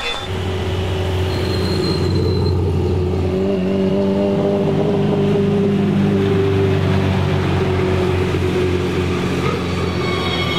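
Subaru wagon rally car's turbocharged flat-four engine running at low, steady revs as the car drives past, a low, even engine note.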